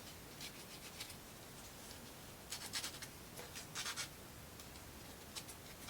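Thin plywood model pieces scraping and rubbing against each other as they are handled and pushed together, in a few short, faint bursts.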